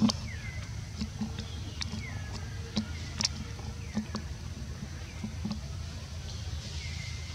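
Outdoor ambience: a steady low rumble with scattered soft clicks and several short, thin chirps that fall in pitch.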